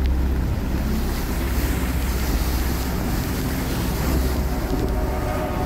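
Steady rushing of floodwater and heavy rain around a car driving through a flooded street, over a constant low rumble with wind buffeting the phone's microphone.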